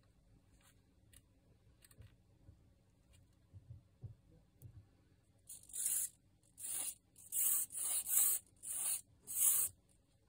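Hands working on a plastic-plate servo mechanism: faint clicks of small plastic parts being handled, then six short, loud scratchy rasps in quick succession near the end.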